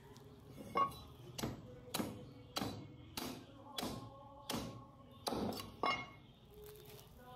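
A butcher's cleaver chopping meat on a chopping block: about ten sharp, evenly spaced strikes, a little under two a second, each with a short ring.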